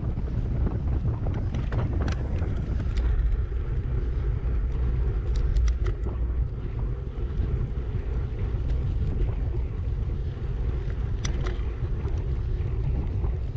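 Wind buffeting the microphone of a camera on a moving bicycle: a steady low rumble, with a few faint ticks.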